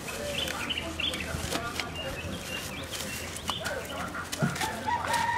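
Busy open-air ambience of distant voices and small knocks, with a rooster starting to crow near the end in one long, held call.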